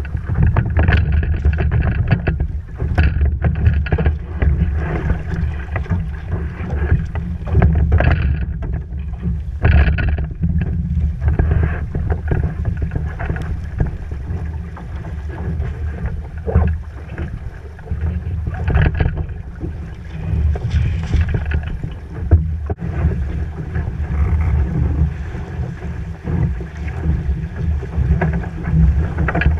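Musto Performance Skiff sailing fast through choppy water: water rushing and splashing against the hull, with irregular louder splashes. Heavy wind buffeting on the microphone runs underneath.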